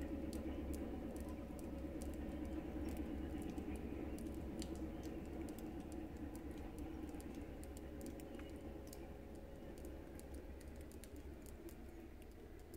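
Steady distant diesel engine hum with a few fixed tones, slowly fading, over scattered faint clicks and ticks.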